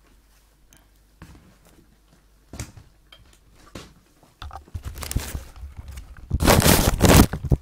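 Thick creamy curry sauce in a frying pan coming up to a bubble, with scattered pops and splutters that thicken into steady crackling after about four seconds. A louder burst of rough noise comes near the end.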